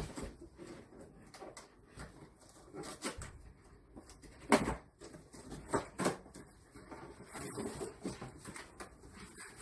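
Cardboard frying-pan box being handled and opened: scattered taps and scrapes, a sharp knock about four and a half seconds in and another about six seconds in, then rustling of cloth and paper near the end as a fabric bag is pulled out.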